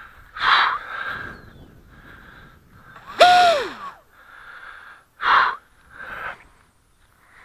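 Short, sharp breaths close to the microphone, four in all, against the faint high whine of a small electric hotliner plane's inrunner motor and propeller in flight. About three seconds in, with the loudest breath, a high whine holds and then drops steeply in pitch.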